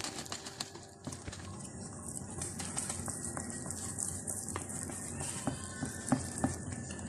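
Wire whisk beating thick gram-flour (besan) batter in a container: soft swishing of the batter with light, irregular clicks of the whisk wires against the container.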